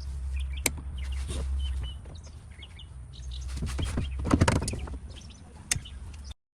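Small birds chirping in the background while a few sharp clicks and a brief clatter of handling noise come from work on the boat's wiring; a low steady hum drops away about two seconds in.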